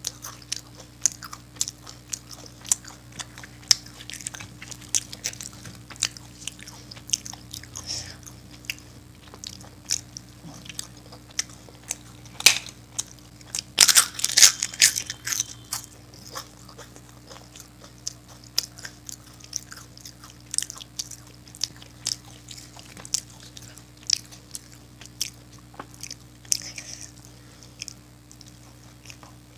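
A person biting and chewing crisp fried food close to the microphone: a run of sharp crunches, loudest in a dense cluster about twelve to fifteen seconds in.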